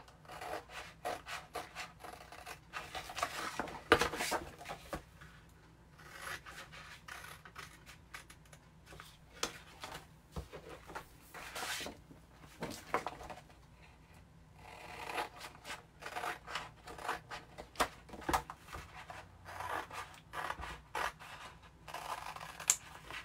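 Scissors snipping through stencil transfer sheets in a run of short, irregular cuts, with one sharper snap about four seconds in.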